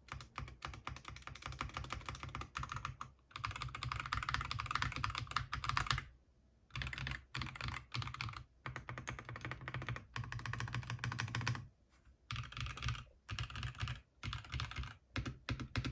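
ASUS ROG Strix Morph 96 Wireless mechanical keyboard being typed on fast, a dense run of key clacks. The typing breaks off briefly about six seconds in, then resumes with a few shorter pauses.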